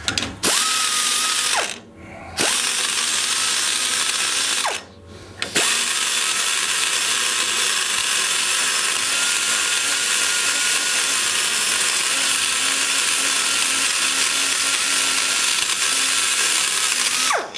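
Die grinder with a burr cutting the aluminum around the exhaust valve guide of a ProComp 190cc small-block Chevy cylinder head, rounding the guide boss into a bullet nose. The grinder gives a steady high whine with a hiss. It stops twice in the first six seconds and spools up each time it restarts, then runs steadily until near the end.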